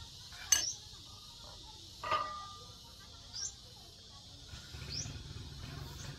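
Two sharp clinks of tableware, the second leaving a short ringing note, as a meal is eaten by hand. Under them a steady high insect chirring runs on, with a few short rising bird chirps in the second half.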